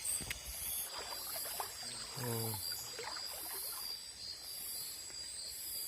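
Forest insect chorus: a steady high drone with a still higher buzz pulsing about one and a half times a second, under faint rustling and handling clicks. About halfway through there is a brief falling vocal sound.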